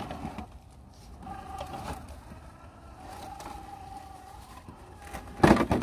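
Element RC Enduro crawler's Hobbywing Fusion brushless motor and drivetrain whining in two stretches as the truck crawls, with a short, loud burst of noise near the end.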